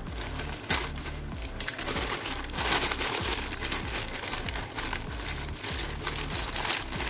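Plastic courier mailer bag being slit open with a cutter and pulled apart by hand, the plastic crinkling and rustling in irregular bursts.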